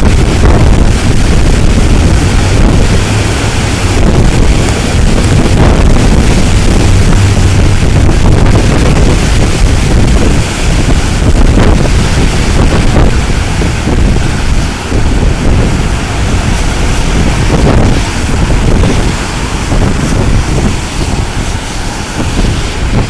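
Hurricane Sandy's storm wind buffeting the microphone in a loud, steady low rumble, with surf breaking on the beach beneath it.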